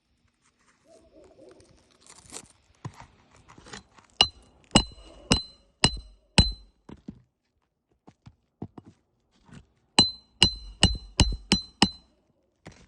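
Hammer driving roofing nails into asphalt shingles: a run of five sharp, ringing strikes about four seconds in, then another run of six near the end. Light scraping and rustling of shingle material comes before them.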